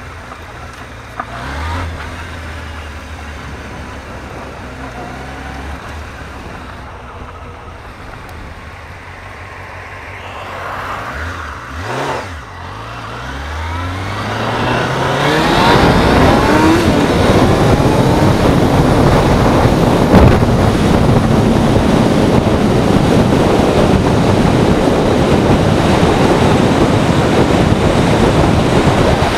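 Honda CBR600F3's inline-four engine running at low speed, then revving up through the gears about ten seconds in. From about halfway a loud, steady rush of wind on the microphone covers the engine as the bike gets up to speed.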